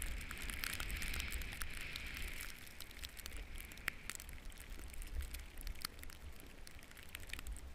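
Snowboard sliding over fresh snow: a steady scraping hiss with many scattered crackles and clicks, over a low wind rumble on the microphone. It eases off somewhat after the first few seconds.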